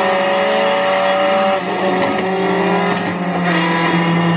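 Car-chase sound from a film on DVD, played through a car's stereo speakers: car engines running and revving with slowly gliding pitch.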